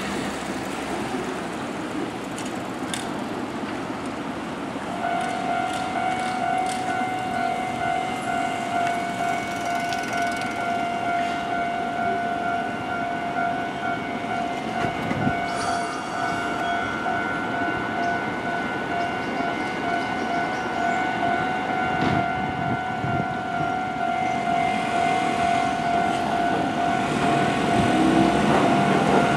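Level-crossing warning alarm ringing steadily from about five seconds in over street noise, as Hankai tram car 603 approaches and its running noise grows louder near the end.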